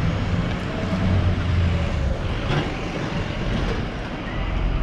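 City street noise: a steady low rumble of road traffic.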